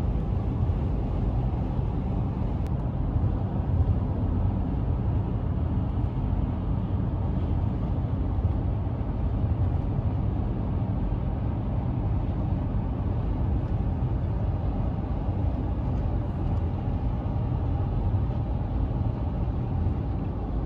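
Steady low rumble of road and engine noise inside a car cruising at highway speed.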